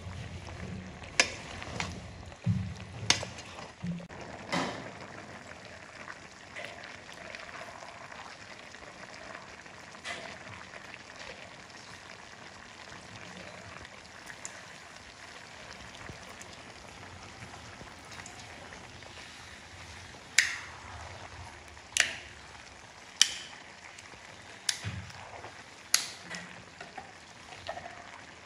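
Beef frying in a steel pot with a steady sizzle. About ten sharp clinks and knocks of a metal ladle and kitchen utensils cut through it, several close together in the last third.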